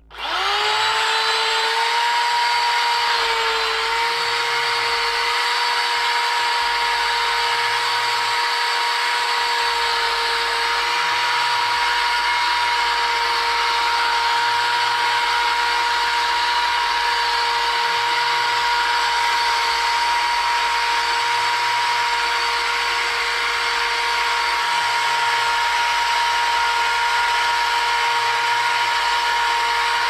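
Vacuum cleaner switched on: its motor spins up within about a second to a steady, loud, high whine with rushing air, then runs evenly as it is used on carpet.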